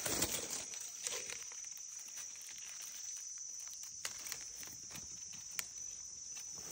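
Steady high insect drone, with scattered footsteps and rustling, a few louder ones in the first second or so.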